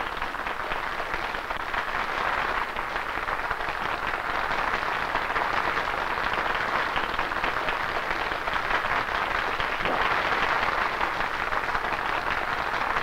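Large crowd applauding, a dense steady clapping that swells over the first few seconds and then holds.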